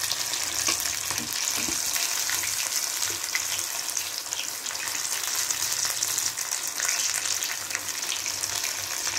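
Breaded fish fingers deep-frying in hot oil: a steady sizzle with scattered small crackles.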